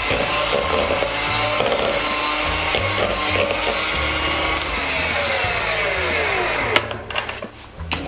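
Electric hand mixer running steadily, its beaters whisking a thick cream mixture in a plastic bowl, until it stops suddenly near the end.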